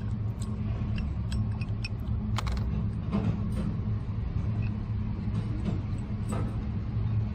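A steady low mechanical rumble, with scattered light metallic clicks as screws are backed out of an aluminium guide bar with a T-handle Allen key and the bar is handled.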